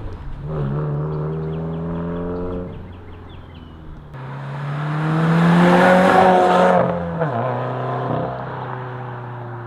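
Subaru WRX's turbocharged flat-four accelerating through the gears on an aftermarket exhaust: the revs climb and drop at a shift, then a louder pull rises to a peak about six seconds in before the revs fall and the note fades.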